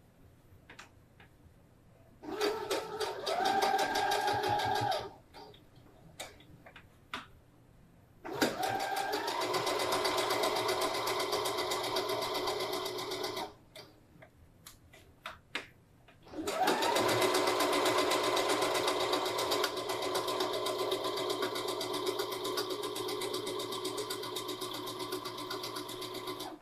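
Electric domestic sewing machine stitching in three runs: a short burst a couple of seconds in, then two long runs starting about 8 and 16 seconds in, each picking up speed as it starts. Small clicks fall in the pauses between runs.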